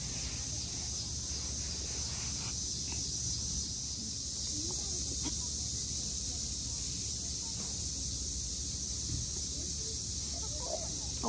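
Steady high hiss of outdoor ambience with a low rumble underneath, and a few faint scrapes and snuffles as a Newfoundland puppy digs and noses in loose sand.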